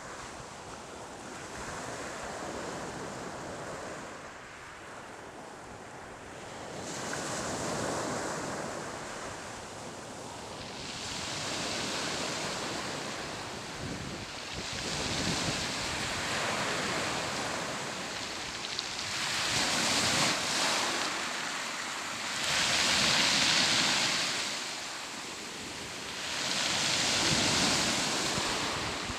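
Sea waves breaking and washing in, the rush swelling and fading every three to four seconds, with wind buffeting the microphone.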